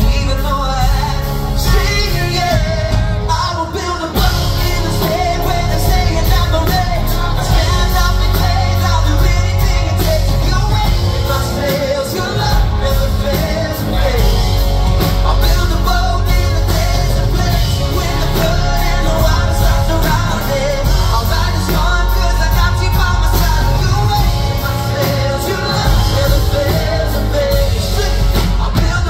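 Live pop-rock band playing with a male lead vocalist singing into a microphone, with strong bass throughout.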